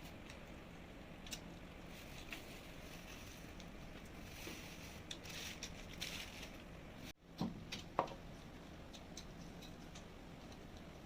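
Quiet eating sounds: soft chewing and light clicks, with two louder short crunches or knocks a little past the middle.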